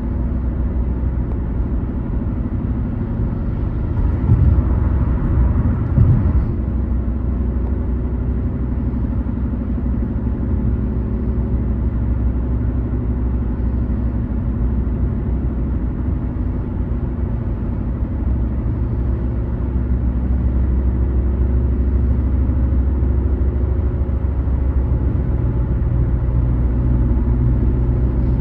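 A car driving on the highway: steady low rumble of engine and tyres on the road. A louder rush swells and passes about four to six seconds in.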